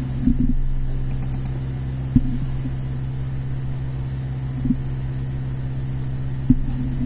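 Steady low mechanical hum, with a few short, soft knocks scattered through it.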